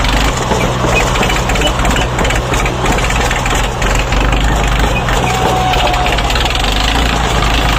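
Diesel tractor engines running steadily close by: a Swaraj 855 FE tractor with a John Deere 5310 tractor right behind it.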